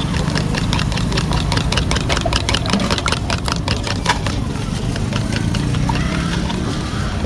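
Eggs with chopped onion and salt beaten by hand in a cup: a quick run of clicking strokes against the cup, several a second, that stops about four and a half seconds in. A steady low engine hum runs underneath.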